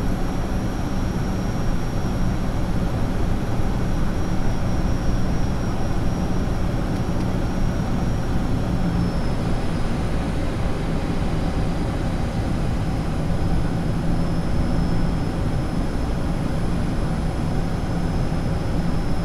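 Steady cabin drone of an ATR 72 turboprop on approach, heard in the cockpit: a low engine and propeller hum under rushing airflow, with a thin high whine that dips slightly in pitch about halfway through.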